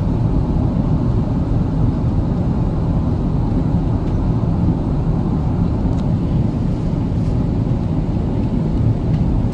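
Steady low roar of an Airbus A380 in flight: its Engine Alliance GP7200 turbofans and the airflow over the fuselage, heard inside the passenger cabin.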